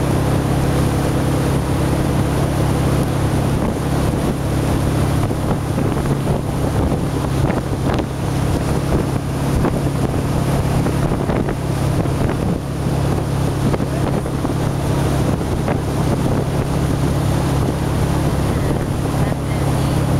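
Motorboat engine running steadily at towing speed, a constant low drone, with wind buffeting the microphone and the rush of the boat's wake.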